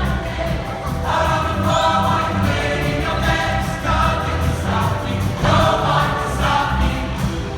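Choir singing phrases of about a second each, with a low bass part running underneath.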